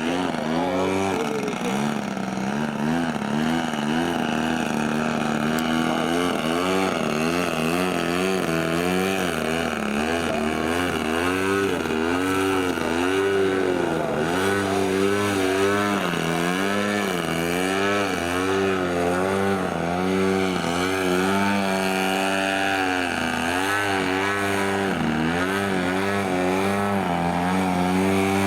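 Engine of a large-scale RC model airplane in flight, its pitch rising and falling over and over as it throttles and swoops through manoeuvres and passes.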